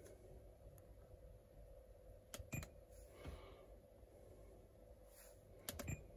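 Near silence with a faint steady hum, broken by two quick clusters of sharp clicks, about two and a half seconds in and again near the end: buttons being pressed on a car's dashboard controls.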